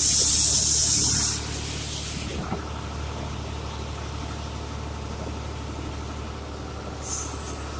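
Tractor engine running at a steady idle, heard from inside the cab. A loud hiss in the first second and a half and a brief, fainter hiss near the end.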